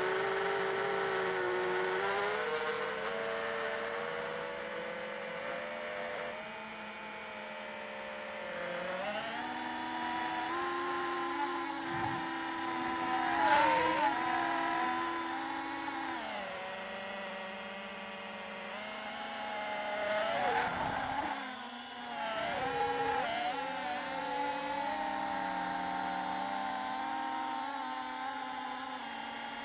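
Brushless electric motor and propeller of an FPV model aircraft in flight, heard from on board: a steady buzzing whine whose pitch steps up and down with the throttle, swooping sharply a couple of times, over a rush of air.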